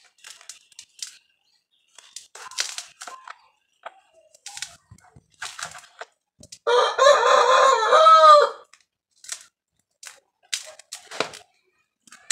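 A rooster crows once, about seven seconds in, for nearly two seconds, the loudest sound here. Around it come short scrapes and clicks of a blade cutting into soil as a plant is dug out with its earth.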